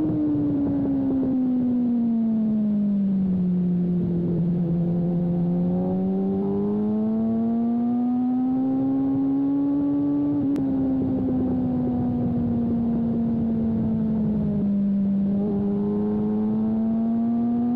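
Sport motorcycle engine heard from the bike itself on a race track. Its revs fall over the first four seconds as it slows, then climb steadily as it accelerates, ease off again about fifteen seconds in and rise once more near the end. There is a short click about ten and a half seconds in.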